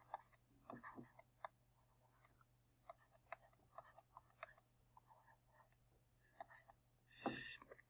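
Faint, irregular clicking and tapping of a stylus on a writing tablet as handwriting is entered, over a low steady hum.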